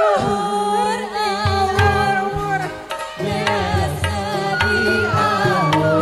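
Live band music: long held, wavering melody notes over hand-drum beats.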